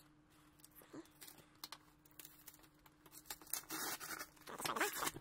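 Cardboard shipping box being opened by hand: small taps and scrapes, then packing tape tearing off the cardboard flaps a little under four seconds in.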